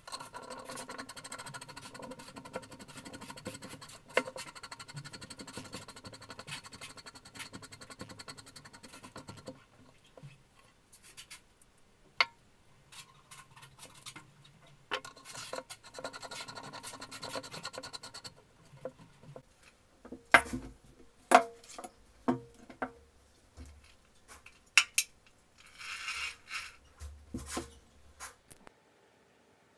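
Metal parts of an old hand breast drill being handled and fitted together: a long run of fast scraping and clicking as the chuck is worked onto the spindle, then a few separate knocks as parts are set down on the bench.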